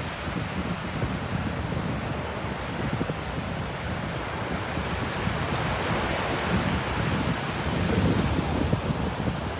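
Ocean surf on a beach: a continuous rushing wash of waves, swelling as a wave breaks and runs up about six to eight seconds in.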